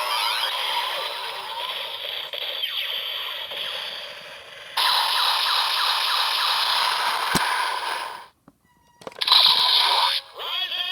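Electronic sound effects from a Kamen Rider Zero-One transformation belt toy: a long hissing, rushing effect that fades, then surges back loudly about halfway through with a sharp click a couple of seconds later. It cuts out briefly near the end and comes back in choppy bursts with sweeping tones.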